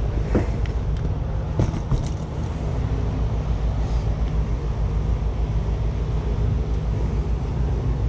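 Steady low mechanical rumble of rooftop HVAC equipment running, with a few light knocks in the first two seconds.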